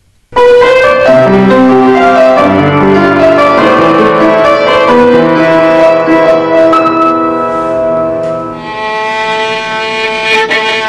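Upright piano tuned in ordinary semitones, played in a quick run of notes. About nine seconds in, a steady sustained violin tone takes over.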